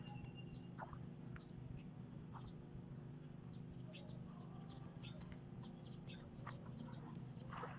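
Faint field ambience: scattered short, high bird chirps over a steady low hum.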